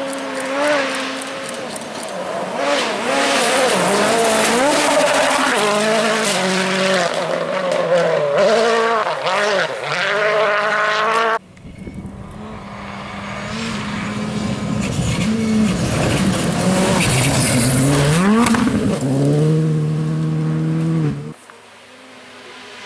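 Rally cars' turbocharged four-cylinder engines at full throttle, pitch climbing and stepping down through quick gear changes, with sharp cracks mixed in. The sound cuts off abruptly about halfway and a second car is heard revving through its gears, then cuts off again near the end.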